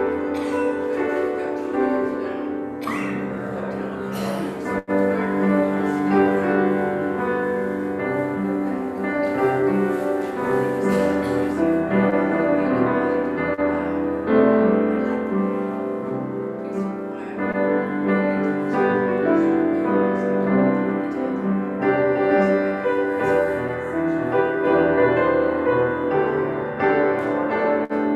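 Piano music, held chords changing every second or so.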